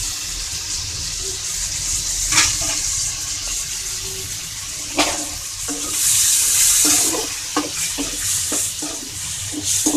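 Wet chicken gizzard pieces sizzling in hot oil in a kadai with onion and tomato: a steady hiss that swells for about a second some six seconds in. A couple of single metal clinks come earlier, and near the end a ladle clinks and scrapes against the pan as the pieces are stirred.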